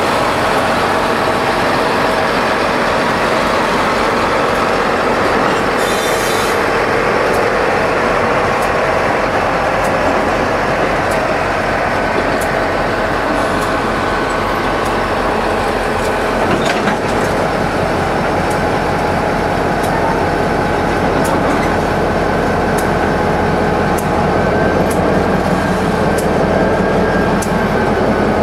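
Water tank cars of NJ Transit's Aqua Track train rolling past: a steady rumble of wheels on rail with a thin, held wheel squeal and, in the second half, light regular clicks over rail joints.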